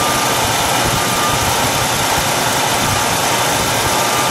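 A 1975 Buick LeSabre's V8 idling steadily, heard close up from inside the engine bay. The idle is a little high, typical of fast idle just after a start.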